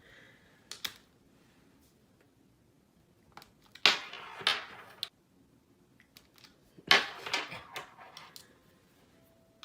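A few sharp knocks and clatters on a hard surface in a small room: a light click about a second in, then two louder bursts of knocking around four and seven seconds in, each ringing briefly.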